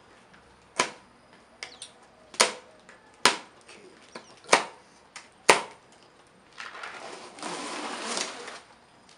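Cardboard box being opened by hand: five sharp snaps and knocks about a second apart, then about two seconds of cardboard and packing rustling near the end.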